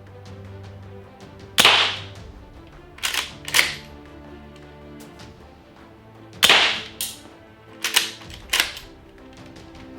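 A&K Winchester Model 1892 gas airsoft lever-action rifle firing at a target, a series of sharp cracks mixed with the metallic clack of the lever being worked, about seven in all, spaced irregularly.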